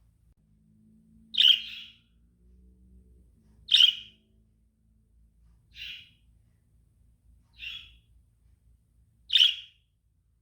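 Lovebird calling: five short, sharp chirps spaced about two seconds apart, the first, second and last the loudest.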